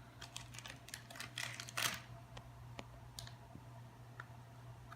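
Faint light clicks and rustles of a small plastic toy and its wrapper being handled, most of them in the first two seconds and only a few after.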